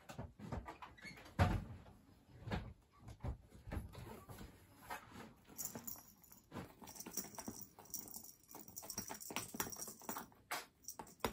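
Soft rustling and light taps of a rainbow-striped cat-teaser toy being dragged and flicked across tatami mats, with a louder thump about a second and a half in and a higher swishing hiss through the second half.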